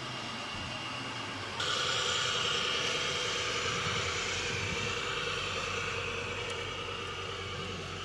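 Radio-controlled model Mercedes-Benz tipper truck driving, its motor and drive running with a steady whine. The sound jumps louder and higher about one and a half seconds in.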